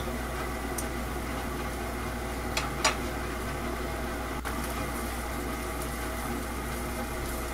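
Pan of water boiling steadily on a gas burner while pork cartilage is parboiled in it, with two light taps of chopsticks a little under three seconds in.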